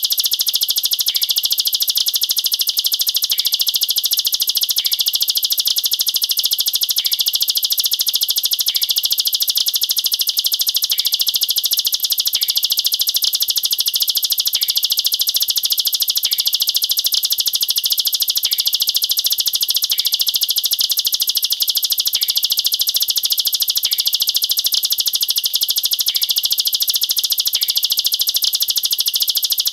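Ciblek sawah (a prinia) singing a continuous, rapid-fire 'nembak rapat' song: dense high trills with no pauses, and short lower notes recurring every second or two. This is the 'shooting' song used as a tutor recording for young birds.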